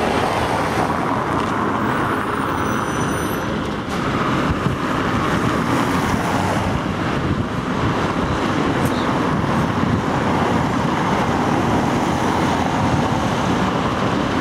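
Steady, loud road-traffic noise with a brief dip about four seconds in.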